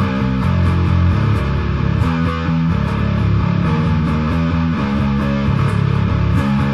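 Instrumental rock music led by a bass guitar playing a riff, with steady cymbal hits over it.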